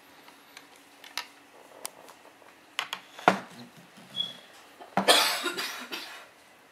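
A few sharp clicks and knocks, with the loudest about three seconds in, then a short noisy burst like a cough about five seconds in.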